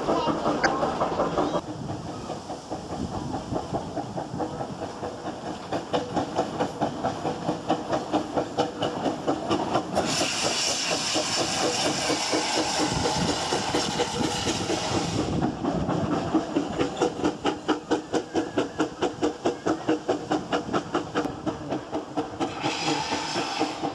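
Steam railmotor's small steam engine working, with a regular beat of exhaust chuffs. A loud hiss of steam runs for about five seconds in the middle and comes again briefly near the end.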